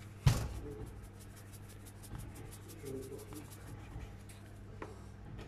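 A knock about a quarter second in, then a pepper mill grinding over a glass bowl, a faint dry scratchy crunching.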